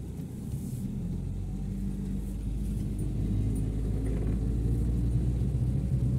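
Car engine and road rumble heard from inside the cabin, a steady low drone that grows gradually louder.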